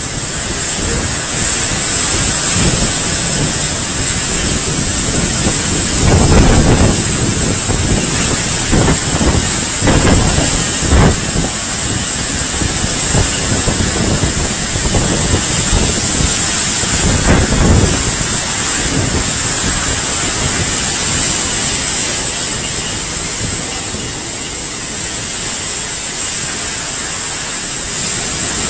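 Typhoon-force wind and driving rain battering the microphone: a loud, steady rush of noise that surges in three stronger gusts.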